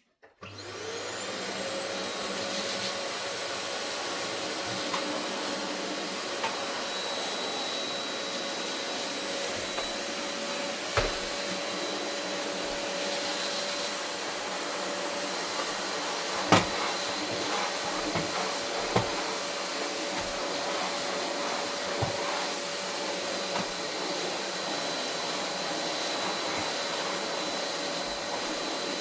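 Vacuum cleaner switched on about half a second in: its motor spins up, then runs steadily with a constant whine while vacuuming carpet. A few sharp knocks break in, the loudest about eleven and sixteen seconds in.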